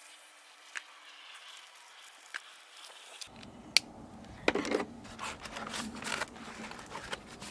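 Scissors cutting through a sheet of foam sound-insulation material: faint scraping at first, then from about halfway a sharp click and an irregular run of louder snips and rustles.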